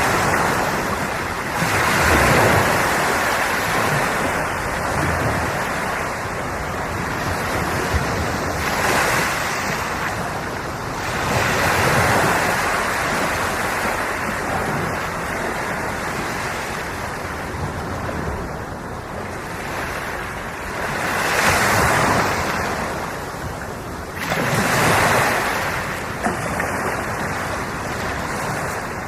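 Ocean waves breaking and washing in, one swell rising and falling every few seconds, with a little wind on the microphone.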